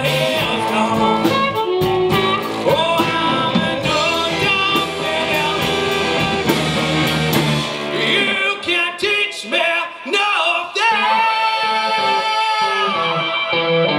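Blues band playing live with electric guitars and drums. About eight seconds in, the full band drops out to short separated hits, then a long held note bends and rings out.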